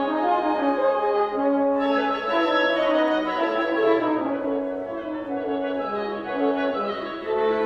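Woodwind quintet of flute, oboe, clarinet, French horn and bassoon playing classical chamber music together, with several lines of held and moving notes sounding at once.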